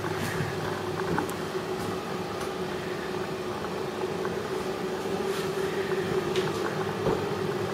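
Steady hum of a small wall-mounted bathroom extractor fan running, with a few faint clicks over it.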